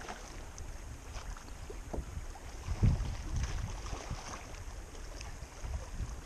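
Wind rumbling on the microphone, with small water slaps against a kayak hull. A louder low thump comes about three seconds in.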